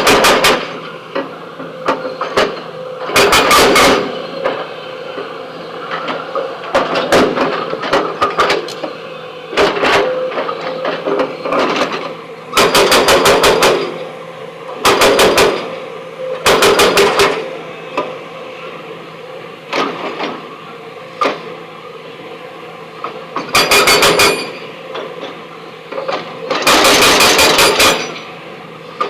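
Backhoe's breaker hammer pounding stone in about nine short bursts of very rapid blows, each lasting under a second to a second and a half, with a steady machine hum between the bursts.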